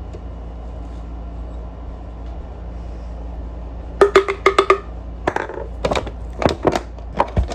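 Sharp taps and knocks of utensils and containers being handled, in a quick irregular run starting about halfway through; the first few ring briefly. Before that there is only a steady low hum.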